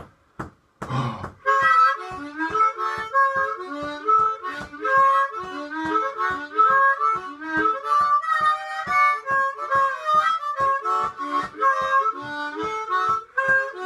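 Harmonica playing a fast boogie, with chords and single notes pulsed in an even, quick chugging rhythm. It starts about a second and a half in, after a brief pause and a couple of clicks.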